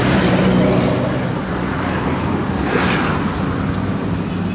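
2016 Kia Rio engine idling with a steady low hum under a rushing noise that swells briefly about halfway through. The engine has a misfire problem.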